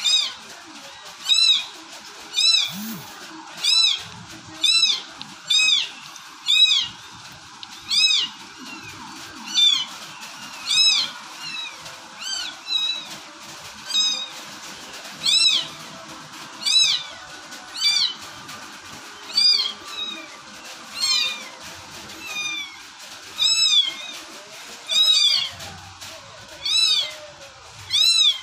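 Hungry kittens mewing over and over, high-pitched cries about once a second, each rising and then falling in pitch.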